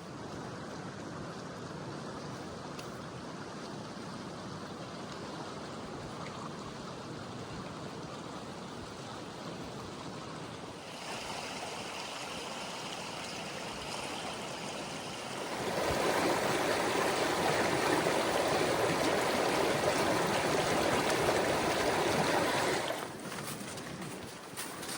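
Rushing water of a creek and small waterfalls, a steady hiss and splash that gets louder a little before the middle, much louder for several seconds after it, then drops back abruptly near the end.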